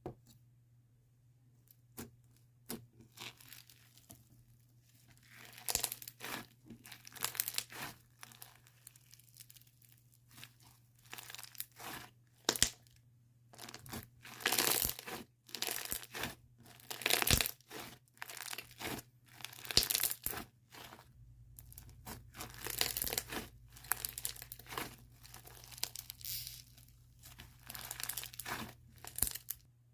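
Slime being squished, stretched and poked by hand, making irregular crackly, sticky bursts that come and go, some short and some lasting a second or more.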